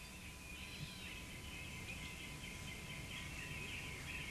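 Outdoor ambience of small birds chirping and twittering, with a low steady rumble underneath.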